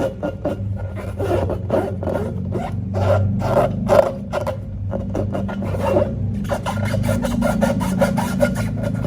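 Hands squeezing and working slime against rubber balloons: a run of irregular sticky crackles, squelches and rubbing.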